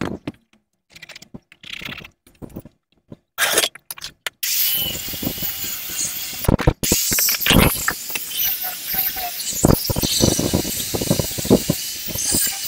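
A few seconds of scattered handling knocks and scrapes, then an electric angle grinder with a sanding disc starts about four and a half seconds in. It runs with a steady high whine, grinding and sanding the base of a motorcycle seat to shape, with a brief drop about halfway through.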